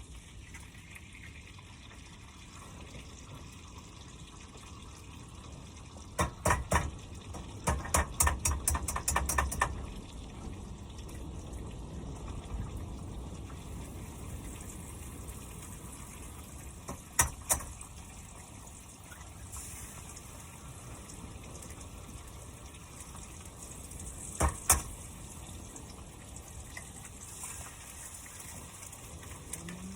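Butter sizzling in a frying pan on a Coleman portable stove, a steady hiss. A quick run of sharp taps and clicks comes about six to ten seconds in, and single knocks come twice later.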